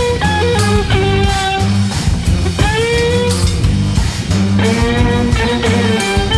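Live band music led by a bowed umbrella violin, a homemade stringed instrument built into an umbrella, playing a sliding, held melody with a clear upward glide about three seconds in. Underneath runs a rhythmic bass and percussion accompaniment.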